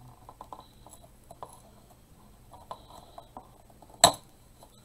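Metal staple remover scraping and clicking as it is worked under a staple in a craft board, with one sharp, loud click about four seconds in.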